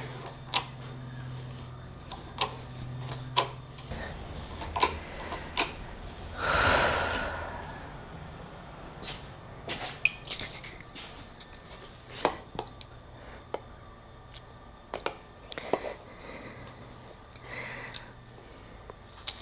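Scattered light clicks and taps of small parts and tools being handled, with a louder rustle or hiss lasting about a second around six to seven seconds in. A low steady hum stops about four seconds in.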